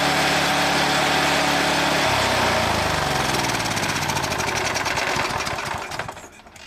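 Briggs & Stratton 375 single-cylinder four-stroke lawn mower engine running steadily, now able to rev out since the bent spring linkage that sets its revs was straightened. About two seconds in it is cut, and its pitch falls as it runs down to a stop over the next few seconds.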